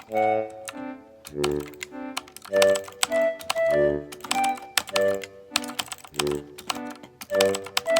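Rapid computer keyboard typing, many sharp key clicks, over background music with a repeating melodic pattern.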